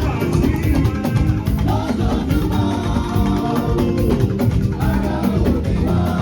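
Upbeat music with a steady percussion beat and singing.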